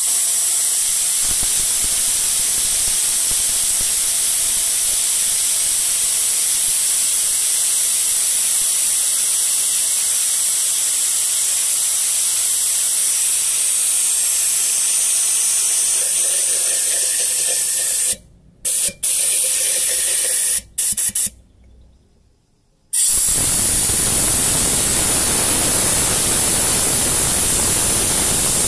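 Compressed air hissing steadily through a homemade copper-tube venturi pump driven by an air blow gun, spraying water drawn up from a jar as a fine mist. About two-thirds in, the air cuts off and on several times and stops for a second or so, then comes back on with a fuller hiss.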